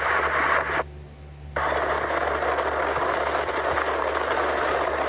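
Steady road and engine noise of a moving vehicle heard from inside, with a low hum underneath; it cuts out for under a second about a second in, then resumes.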